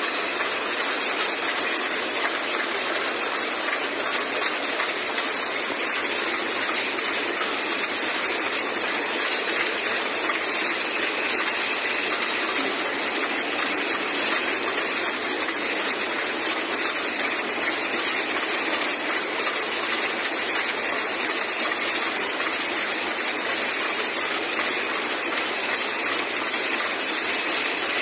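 Cough syrup filling-capping machine running: a steady hiss with a constant patter of small clicks.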